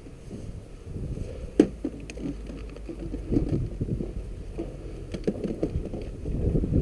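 Wind rumbling on a body-worn camera's microphone, with scuffing movement and a few sharp clicks, the loudest about one and a half seconds in.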